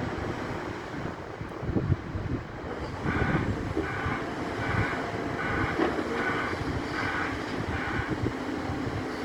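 Heavy demolition excavator running with knocks of rubble, then its reversing alarm beeping seven times, about one beep every three-quarters of a second, as the machine moves.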